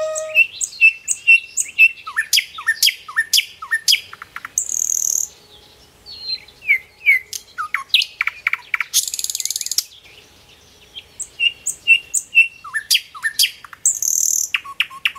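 Birds chirping: runs of short, quick downward-sweeping chirps, broken about every five seconds by a brief high buzzy trill, with short lulls between the runs.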